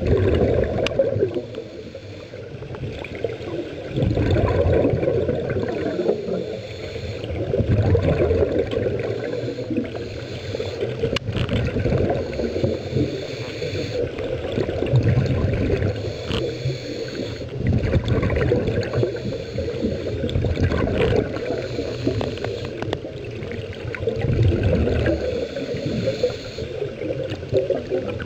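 Scuba regulator breathing heard underwater: exhaled air bubbling and gurgling out of the regulator, swelling in surges every few seconds over a steady low rumble of water.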